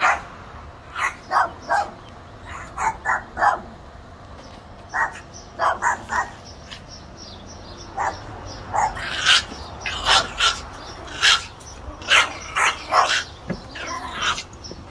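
Small Chihuahuas barking in short, sharp yaps that come in quick clusters of two or three, getting louder and more frequent about two-thirds of the way through.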